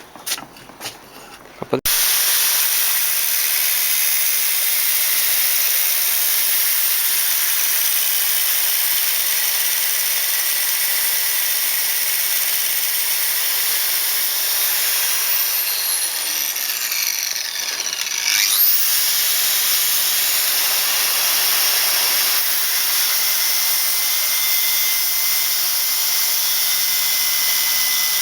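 Power grinder grinding a silver steel knife blade: a loud, steady, hissing grind that starts abruptly about two seconds in. A thin whine falls and then climbs back up about two-thirds of the way through.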